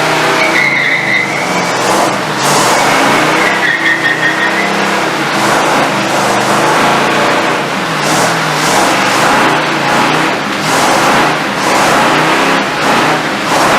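A vehicle engine running and being revved, its pitch rising and falling repeatedly.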